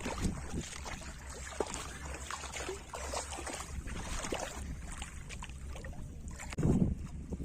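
Shallow river water sloshing and splashing, with many small splashes and a heavier splash near the end.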